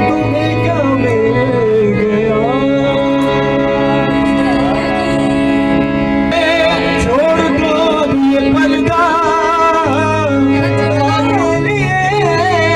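Qawwali music: a voice sings long wavering, ornamented lines over steady sustained instrumental tones.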